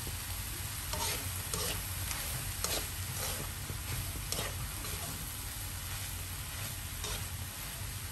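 Slotted plastic spatula stirring and scraping quinoa fried rice around a wok, over a steady sizzle of frying. Several separate scraping strokes come in the first half, the last one about seven seconds in.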